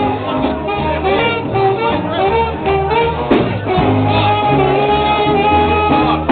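A band playing loud music, with long held notes over a steady bass line; a brief knock sounds about three seconds in.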